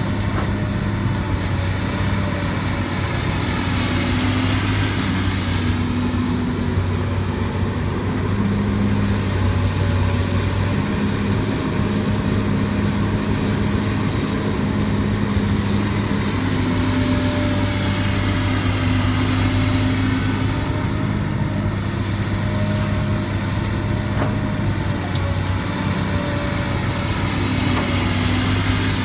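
Heavy earthmoving machinery's diesel engine running steadily with a low drone, its note shifting slightly up and down every few seconds as the load changes.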